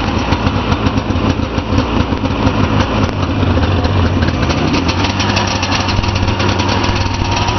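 A 1978 Arctic Cat Pantera's 500 cc Suzuki fan-cooled two-stroke engine running steadily after a cold start. The owner notes a little exhaust leak.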